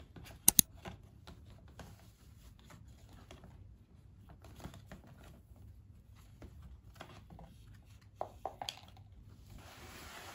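Paper shopping bag being handled: light rustling and crinkling of the paper, with two sharp clicks about half a second in and a few more around eight seconds in. Near the end comes a longer, steady rustle as a cloth pouch is drawn out of the bag.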